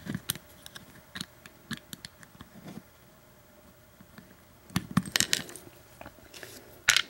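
Light metallic clicks and clinks from an Abus 83 padlock being taken apart by hand with small tools. The loudest cluster of clicks comes about five seconds in, with another sharp click near the end.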